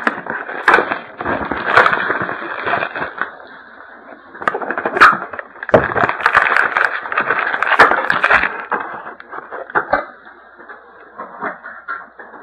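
Crinkling and crackling of plastic wrap and cardboard as a trading-card box is opened and its packs handled, with sharp clicks scattered through it. Quieter for the last couple of seconds.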